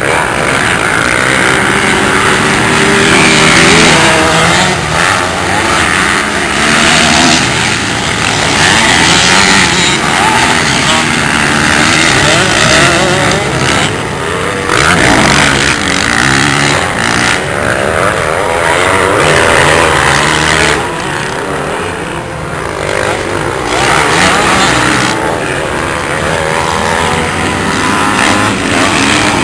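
Motocross dirt bike engines revving hard as the bikes race round the track, the engine pitch climbing and falling with each shift and throttle change.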